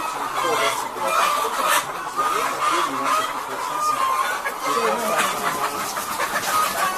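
A large flock of caged BV-380 laying hens clucking and calling all at once, a dense steady chorus of many overlapping calls.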